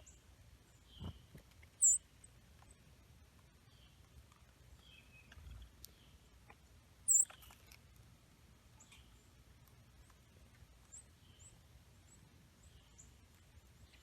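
Small songbirds calling: two sharp, very high call notes about five seconds apart stand out, with faint short chips and high notes scattered throughout. A soft low thump comes about a second in.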